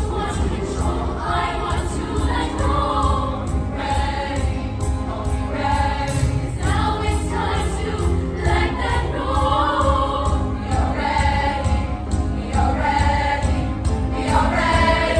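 A group of voices singing together over an accompaniment with a steady, heavy bass.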